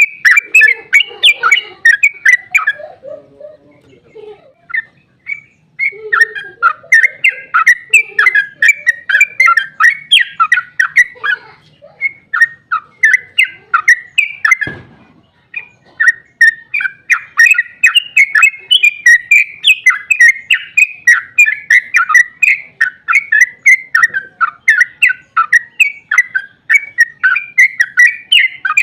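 Yellow-vented bulbul (trucuk) singing a long, rapid, bubbly chattering song of quick notes, with a pause of about two seconds near the start and lower notes mixed in early on. There is a single short thump about halfway through.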